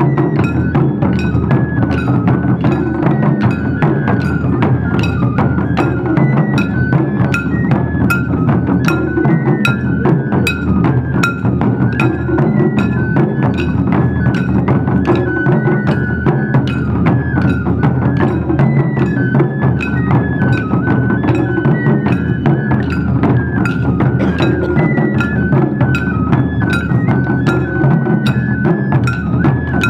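Wadaiko ensemble playing: taiko drums beaten in a steady, dense rhythm, with a stepping melody on shinobue bamboo flutes above the drums.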